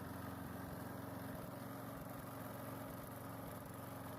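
Walk-behind lawn mower engine running at a steady speed, less shaky than it was, with its newly changed oil still holding some water.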